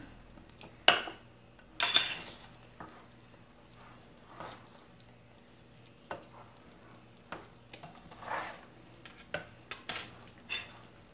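Metal spoon stirring thick cookie dough in a glass bowl: scattered clinks and scrapes of the spoon against the glass, the loudest about a second in.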